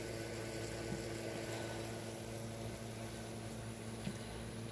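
Steady low mechanical hum with an even hiss over it, and two faint clicks, about a second in and near the end.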